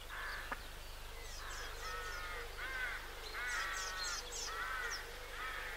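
Birds calling at dawn: a run of repeated calls, about one every two-thirds of a second, with thin high chirps from smaller birds over them.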